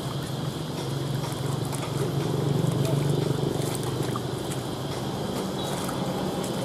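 Steady low mechanical hum with people talking, and light splashing of water as hands scrub rat carcasses in a plastic basin.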